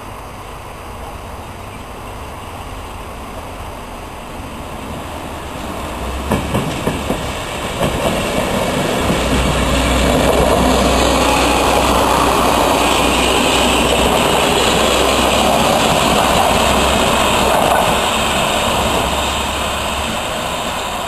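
Two-car Fiat diesel railcar approaching and passing close by: its engine drone grows, the wheels click over rail joints a few times about six seconds in, and the sound fades as the train moves away near the end.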